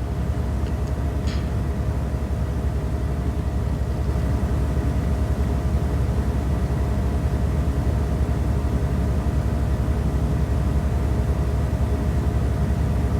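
A steady low rumble with a few faint, held hum tones above it, unchanging throughout.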